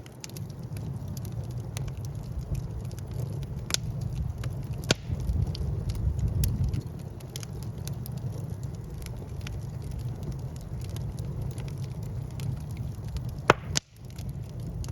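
Wood fire burning in a fireplace: a steady low rumble of flames with logs crackling throughout, and a few louder sharp pops. The sound cuts out for a split second near the end.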